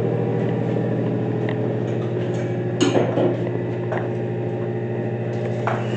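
Milking system's vacuum pump running with a steady hum, switched on as milking gets under way. A few light clanks of equipment sound about three and four seconds in and again near the end.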